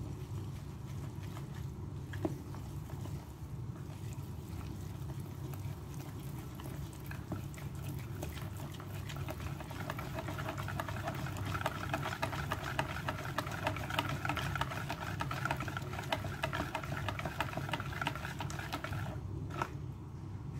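Wire balloon whisk beating flour and water into a fritter batter in a bowl. It is soft at first while the flour is still dry, then becomes a rapid wet clicking and slapping of the tines against the bowl that stops shortly before the end. A steady low hum lies underneath.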